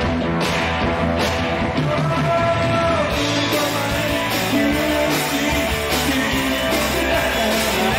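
A rock band playing live, with electric guitar and a steady beat.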